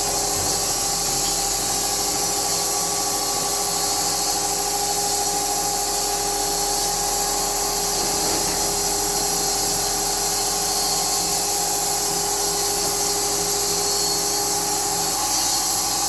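Fully automatic sawmill running steadily: a constant machine whine with a strong high hiss, unchanging throughout.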